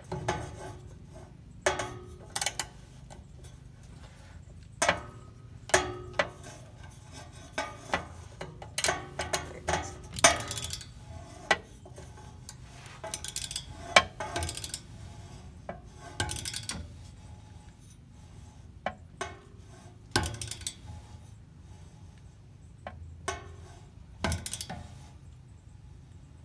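Hand ratchet wrench working a fitting on a car's rear differential housing: scattered metal clicks and clinks of the ratchet and socket, some in quick runs, with short pauses between.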